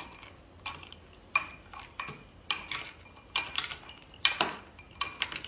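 A metal spoon and a plastic spoon tossing peanut masala in a glass bowl, clinking against the glass in irregular, sharp taps with a brief ring, two or three a second at the busiest.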